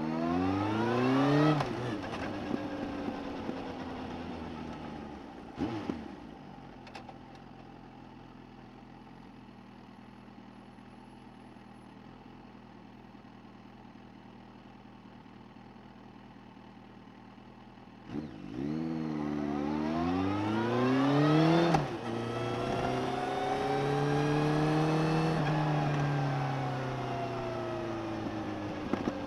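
Suzuki GSX1250FA inline-four motorcycle engine, recorded from under the seat, accelerating hard with a rising pitch and then dropping back to a quiet, steady low note for about twelve seconds. It then pulls away again, the revs climbing and breaking at two gear changes, and settles to a steady cruise whose pitch rises and falls gently.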